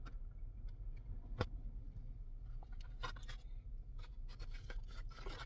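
Light clicks and scrapes from a molded-fibre takeout clamshell being handled, over a steady low rumble inside a car.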